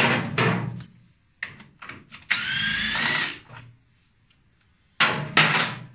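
A handheld power tool undoing gearbox bolts runs for about a second with a whine that rises slightly in pitch. Sharp metallic knocks from tools on the gearbox come before and after it.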